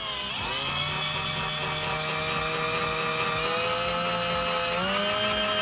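Electric drill running steadily with a 3/16-inch bit, drilling out a rivet through its centre; its pitch steps up a little near the end.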